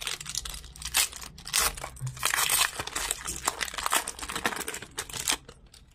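Foil wrapper of a Magic: The Gathering collector booster pack crinkling and tearing as it is ripped open by hand, in quick irregular crackles that stop shortly before the end.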